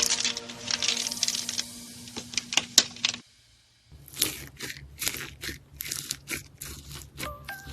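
Rapid crisp crackling and crunching clicks, broken by a brief silence about three seconds in, then more scattered clicks. Faint melody notes come in near the end.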